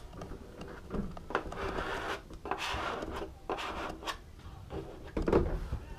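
Squeegee card and cloth rubbed in strokes over a wet, soapy grip film on a kneeboard deck, pushing out trapped water and air. There is a louder handling bump about five seconds in.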